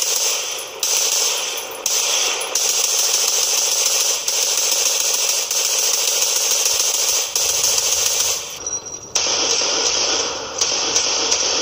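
Machine-gun fire in long rapid bursts, breaking off briefly about one, two and nine seconds in.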